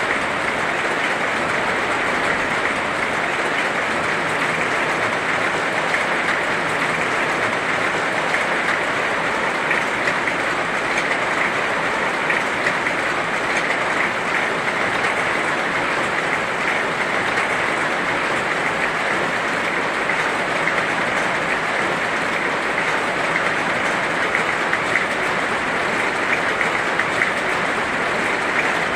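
Heavy rain falling steadily, a dense even hiss with fine crackle.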